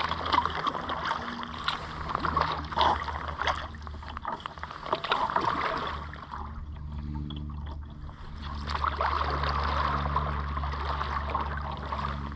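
Water splashing and trickling around a kayak as it is paddled, with sharp splashes from the paddle blades. The splashing eases off for a couple of seconds around the middle, with a low steady hum underneath.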